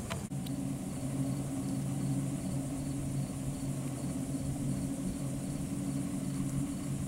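An engine running steadily, a low even hum, with insects buzzing faintly and high in the background.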